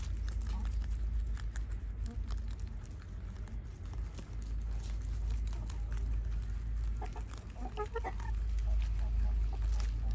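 Rabbits chewing and tearing leafy green stems, many small crisp crunches and clicks, with a chicken clucking briefly about seven to eight seconds in over a steady low rumble.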